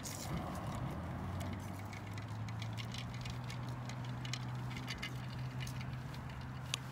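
A steady low motor hum, with scattered light clicks and rattles over it.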